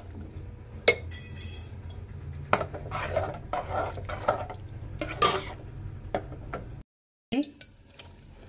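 Stainless steel spoon knocking and scraping against the inside of a pressure cooker as thick cooked dal is scooped out: one sharp knock about a second in, then several scraping strokes, over a steady low hum.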